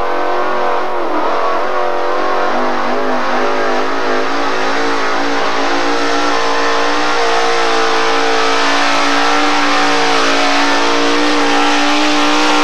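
Modified four-wheel-drive pulling truck's engine running hard as it drags a weight-transfer sled. Its pitch wavers for the first few seconds, then holds high and steady.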